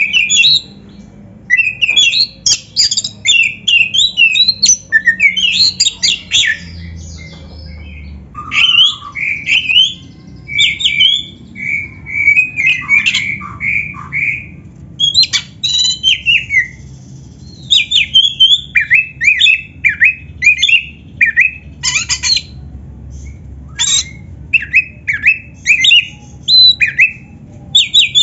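Oriental magpie-robin (kacer) singing loudly: a continuous run of varied sharp whistles and scratchy notes, many falling quickly in pitch, in phrases with short gaps between them.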